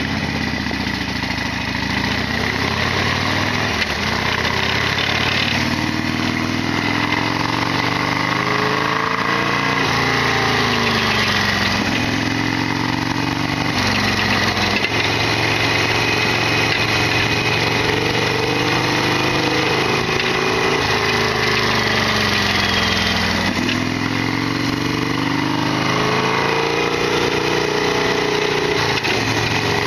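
Modified Harley-Davidson Sportster XL1200R's air-cooled 1200 cc V-twin engine running under way, its pitch climbing over several seconds and dropping back a few times, as with throttle and gear changes, with a steady high whine running underneath.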